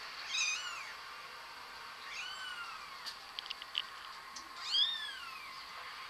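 Very young kittens mewing: three high-pitched mews about two seconds apart, each rising then falling in pitch, with a few faint clicks between the second and the third.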